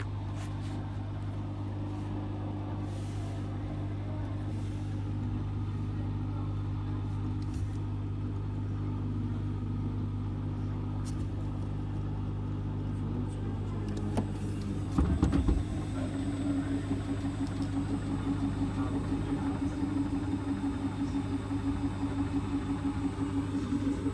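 Hotpoint WT761 Ultima washing machine on its spin after the wash, the motor and drum running with a steady hum. About 15 seconds in there is a brief louder knock, then a higher motor tone comes in that pulses regularly in loudness as the drum turns.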